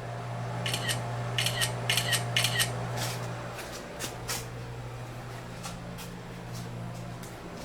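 Camera shutter clicking repeatedly, several quick double clicks in the first few seconds, then scattered single clicks, over a steady low hum.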